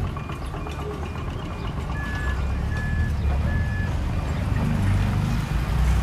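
Heavy earthmoving machinery engines running with a deep, steady rumble that swells in the second half, with reversing alarms beeping over it. A quicker, higher-pitched beeping comes first, then three lower beeps about two to three seconds in.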